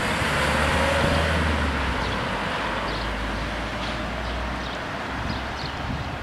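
Small flatbed truck driving past, its engine drone loudest about a second in and then fading away.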